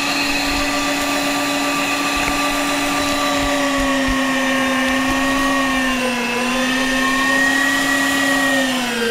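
Electric meat grinder running steadily as walnuts and onion are pushed through it. The motor's hum sags a little in pitch under load about six seconds in and again near the end.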